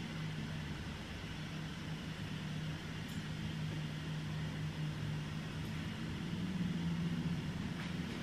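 A steady low mechanical hum with a faint even hiss.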